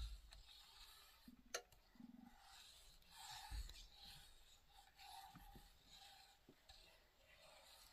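Butter browning in a nonstick skillet, faintly sizzling and foaming, while a silicone spatula scrapes and stirs across the pan bottom to keep the browning milk solids from burning. There is a single sharp tick about a second and a half in.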